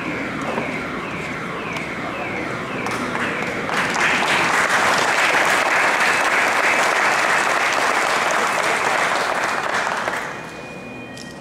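Crowd applauding, loudest from about four seconds in and stopping fairly suddenly near the end. It is preceded by a run of short falling tones, about two a second.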